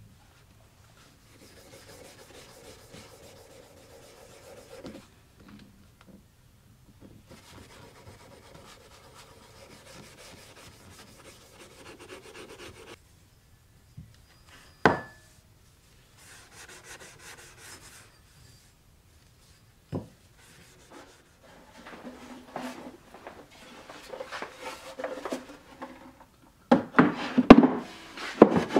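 Steel wool rubbing over a steel hammer head on a cloth, in soft scratchy passes of a few seconds each with one sharp knock partway through. Near the end, several loud wooden knocks as a wooden box is set onto a workbench.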